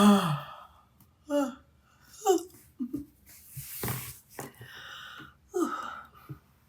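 The end of a woman's yawn, her voice falling in pitch and fading out about half a second in, followed by short breathy vocal sounds and breaths, with one sharper breath about four seconds in.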